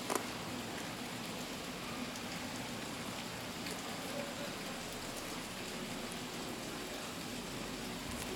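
A steady hiss with a faint low hum, and one sharp click just after the start.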